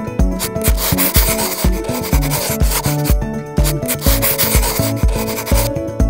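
Thick felt-tip marker scratching across paper in long strokes as an outline is traced, pausing briefly about halfway and stopping near the end. Background music with a steady beat plays underneath.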